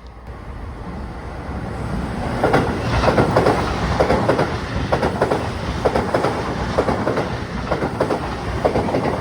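Tokyu Meguro Line electric train passing close by, growing louder over the first two seconds, then its wheels clacking over the rail joints in a rapid series of clicks.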